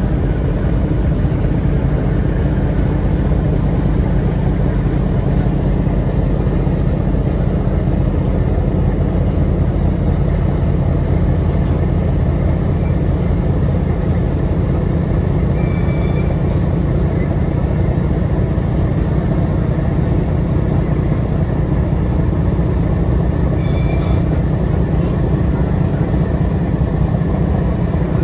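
Steady low drone of a river passenger launch's diesel engines running at speed, over the rushing noise of its wash. A brief high tone sounds twice, about eight seconds apart.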